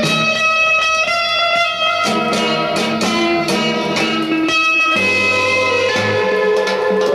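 Music with a prominent guitar over a steady bass line, played from a vinyl record on a Thorens TD 295 MK IV turntable.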